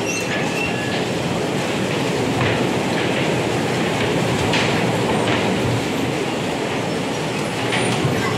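Electric bumper cars driving around the rink: a steady rolling rumble and whir from the cars, with a few brief high squeals in the first second.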